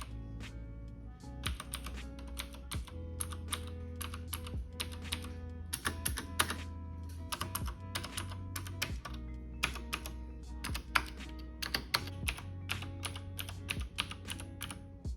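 Typing on a KBParadise V100 mechanical keyboard with clicky Cherry MX Blue switches: a quick, uneven run of sharp keystroke clicks, over background music.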